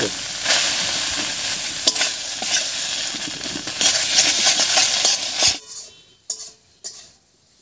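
Leaf paste frying and sizzling in hot oil in a kadai while a spatula stirs and scrapes it around the pan. The sizzle cuts off abruptly about five and a half seconds in, leaving only a few faint clicks.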